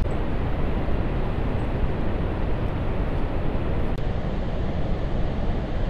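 Steady rushing roar of Niagara Falls under heavy wind rumble on the microphone. About four seconds in there is a click, and the noise turns duller and continues.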